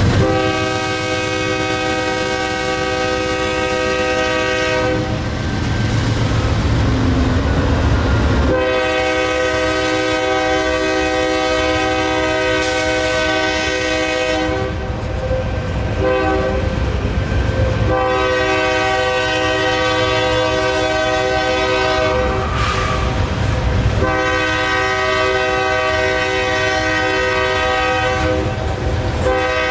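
Freight locomotive's multi-chime air horn sounding a series of long blasts with short gaps between them, over the low rumble of the train.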